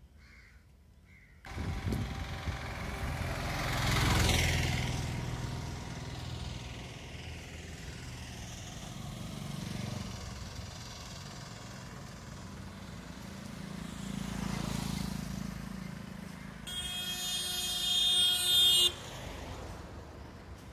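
Road traffic passing close by, swelling as vehicles go past at about four seconds in and again around fifteen seconds, then a vehicle horn sounding for about two seconds near the end.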